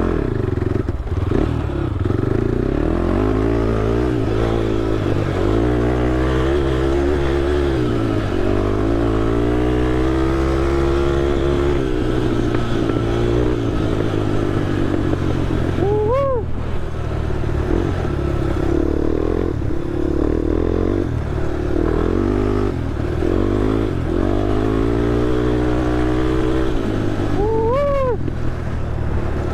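Honda TRX ATV's single-cylinder four-stroke engine running, its speed rising and falling again and again with the throttle. Two short squeals cut in about halfway through and near the end.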